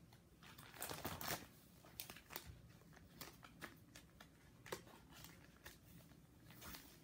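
Faint crinkling of plastic binder sleeve pages and scattered soft clicks and taps as baseball cards are handled and slid into the pockets, with the longest crinkle about a second in.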